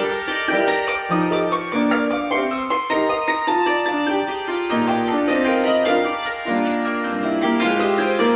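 Cimbalom struck with hammers, playing a quick passage of many notes, some held as rolled tremolos.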